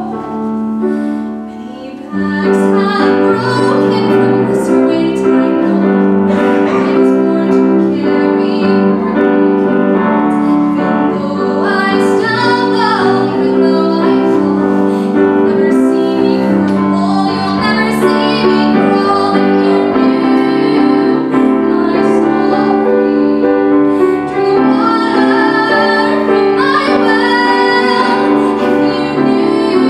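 A woman singing a musical-theatre solo, with vibrato on the held notes, accompanied by a grand piano. The voice and piano grow louder about two seconds in.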